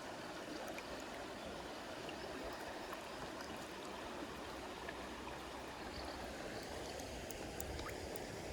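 Mountain stream flowing: a steady, even rush of running water, with a few faint ticks near the end.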